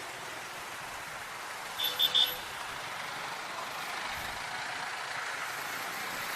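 Steady wind and traffic noise on the move on a motorcycle, with three quick high-pitched beeps about two seconds in.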